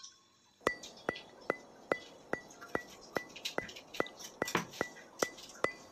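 A steady, evenly spaced ticking, about two and a half ticks a second, each tick a sharp click with a short high ring, starting about half a second in: a clock-like tick in the intro soundtrack.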